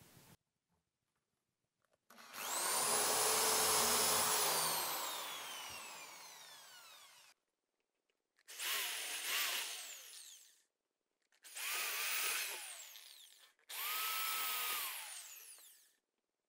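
Electric drill with a 6 mm wood bit boring screw holes through a wooden door, four runs with pauses between. The first is about five seconds long, rising to a steady whine and then winding down with falling pitch; the next three are about two seconds each, ending the same way.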